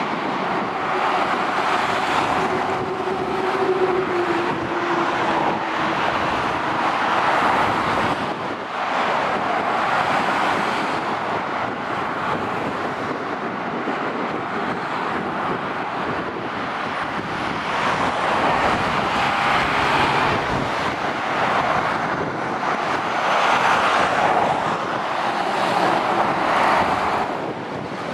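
Motorway traffic: lorries and cars passing one after another, the tyre and engine noise swelling and fading with each vehicle. A truck's engine hum drops slightly in pitch as it goes by about four seconds in.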